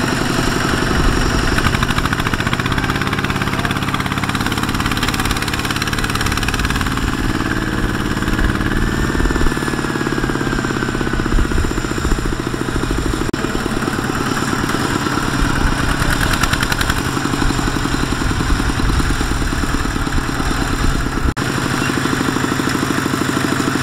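Single-cylinder diesel engine of a Kubota walking tractor running with a fast, even chug, its pitch shifting a little as it strains to pull a loaded trailer out of mud.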